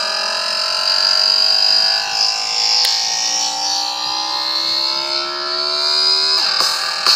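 Electronic dance music: a sustained synth chord rises slowly in pitch for about six seconds, a dubstep-style build-up. Near the end it drops away into sharp percussive beats.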